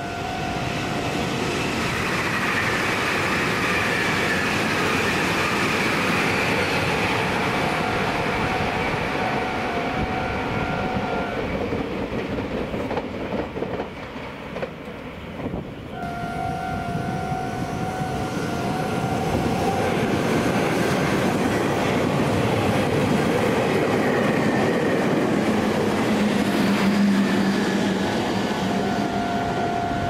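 Japanese railway level-crossing warning bell ringing steadily while an electric train passes, its wheels clattering over the rail joints. The bell drops out for a few seconds around the middle and then rings again.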